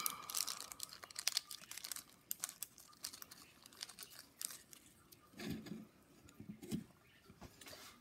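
Small clear plastic parts bag crinkling and rustling as it is handled to get a replacement motor gear out. The crackle comes as quick irregular clicks, busiest in the first half, with a couple of soft bumps later.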